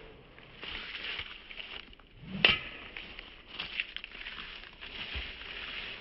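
A Callaway Diablo Octane driver striking a golf ball: one sharp crack about two and a half seconds in, with a brief ring. Faint rustling before and after.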